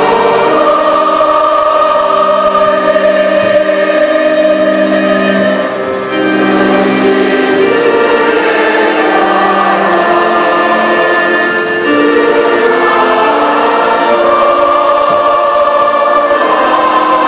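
Choir singing a slow hymn in long held phrases, with brief breaks between phrases about six and twelve seconds in.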